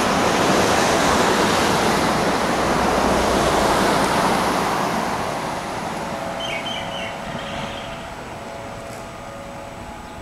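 An aircraft passing overhead: a loud rushing roar that falls in pitch as it goes over, then fades away over several seconds. Faint bird chirps come through about two thirds of the way in.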